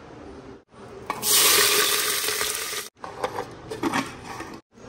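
A loud sizzle of hot oil as the tempering ingredients for khichdi (green chillies, onion, whole spices) go into it. It lasts under two seconds and cuts off abruptly. Then come a few metal clicks and knocks as a pressure cooker lid is fitted and its handle locked.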